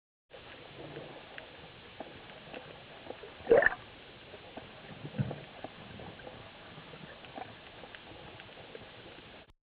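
Water heard underwater close to the surface as a freediver fins: muffled gurgling and bubbling from fin kicks and splashes, with one louder rising gurgle about three and a half seconds in and another about five seconds in. It starts and cuts off abruptly.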